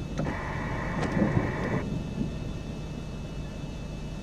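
Steady low rumble, with a steady high tone lasting about a second and a half near the start and a few sharp clicks.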